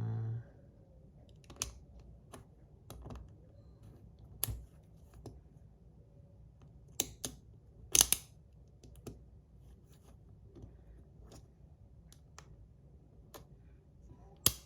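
Irregular clicks and taps of a 3D-printed slider fidget's plastic plates and brass weight inserts being handled and fitted back together, the loudest snap about eight seconds in.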